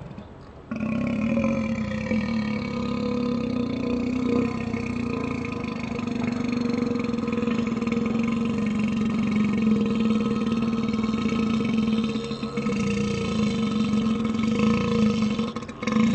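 A boy's long, drawn-out burp from the gas of two cans of Coke. It starts suddenly and holds a steady pitch for about fifteen seconds, breaks briefly near the end, then starts again.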